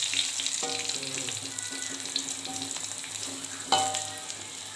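Tempe frying in a little oil in a wok, sizzling steadily, while a spatula turns the pieces, knocking against the pan with a short ringing clink about half a second in and again near the end.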